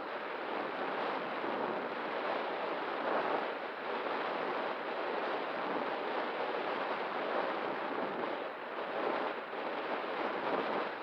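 Steady rushing wind noise on the microphone, without a break and with small swells in level.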